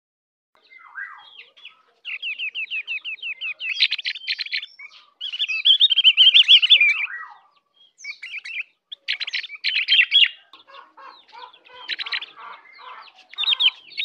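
Ovior (opior) white-eye singing: quick, high-pitched chattering trills and warbling phrases in bursts with short pauses, starting about a second in.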